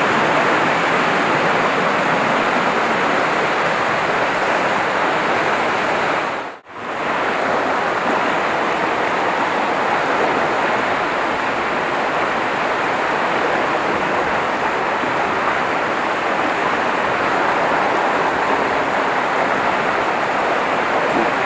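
River water rushing steadily over rocks and rapids, a loud even noise, broken by a short drop-out about six and a half seconds in.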